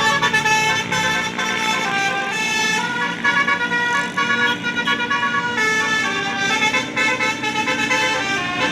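A bus's telolet horn, a multi-tone musical air horn, playing a tune of stepping notes, loud and without a break, over engine noise.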